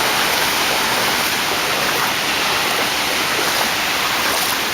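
A steady, even hiss of water with no separate splashes.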